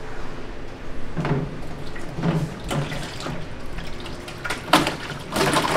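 Thick, wet blood sausage filling sloshing and splattering as it is poured from a stainless steel bowl into a plastic tub, with a few louder splashes, the loudest near the end.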